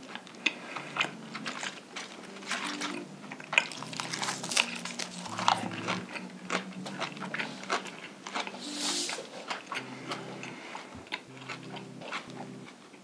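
Close-miked chewing and biting of a mouthful of pork (jokbal and bossam): many small mouth clicks and smacks.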